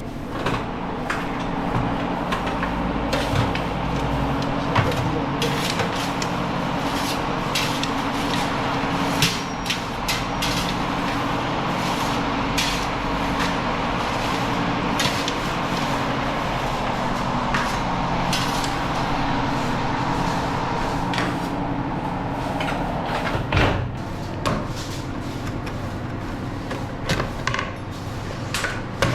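Steady low machine hum with frequent short knocks and clatters scattered through it.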